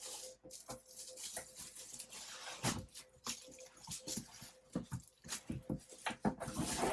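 Packaging being handled as the box is emptied: irregular rustling with many small knocks and clicks.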